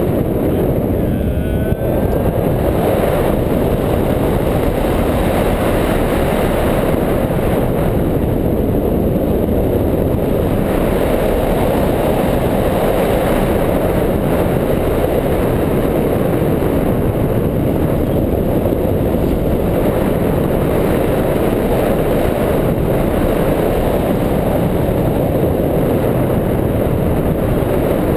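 Steady wind rush over the microphone of a camera fixed to a hang glider's wing in flight, loud and unbroken.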